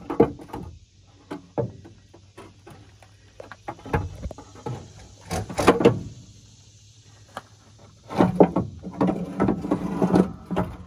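Metal knocks and clanks from a Detroit Diesel 6-71's valve cover as it is worked loose by hand. From about eight seconds in comes a denser rattling scrape as the cover is slid out past the rocker arms.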